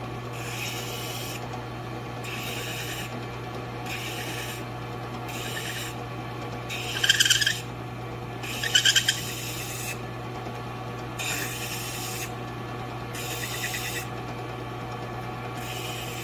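Drill press running with a steady low hum while a small, dense purpleheart block is pressed in short passes against its spinning fine-grit sanding disc. About nine brief rasping strokes come every second and a half to two seconds, and the two near the middle are the loudest.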